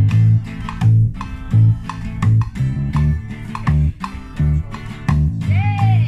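Live acoustic band music: a strummed acoustic guitar in a steady rhythm over a bass guitar line.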